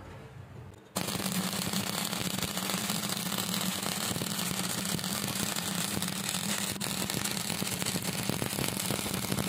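Stick-welding arc struck about a second in, then a steady, dense crackle and sizzle as the covered electrode burns along the steel plate.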